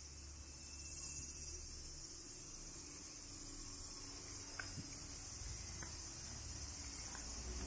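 Cicadas shrilling steadily in a high-pitched summer chorus, with a low rumble underneath and a few faint ticks.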